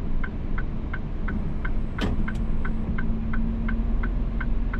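Inside a tractor-trailer cab, the diesel engine runs with a steady hum while the turn-signal/hazard flasher ticks evenly, about three ticks a second. A single sharper knock comes about two seconds in.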